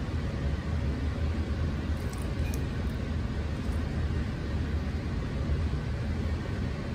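Steady low rumbling background noise, with a few faint light ticks about two to three seconds in.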